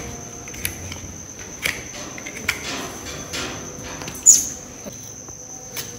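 Sharp clicks and scrapes of a farrier trimming a horse's hind hoof with a hand tool, roughly one a second, the loudest a little past the middle. A steady thin high-pitched whine runs underneath.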